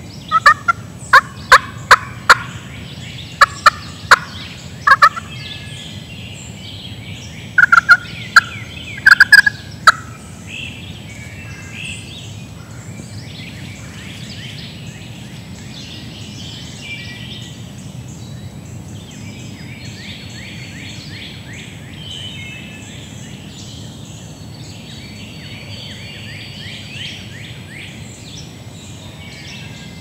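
Loud turkey calls in three short series of sharp, separate notes within the first ten seconds, then songbirds chirping in the woods for the rest.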